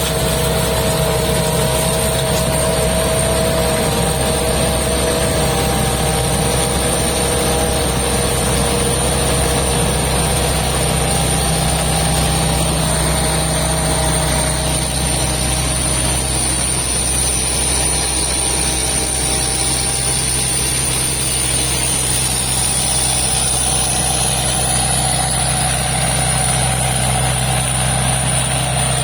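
Combine harvester's diesel engine running steadily, with a thin steady high whine above it.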